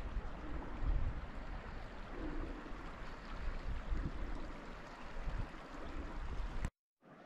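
Steady rush of running water, with gusts of wind buffeting the microphone in a low, uneven rumble. The sound cuts off abruptly near the end.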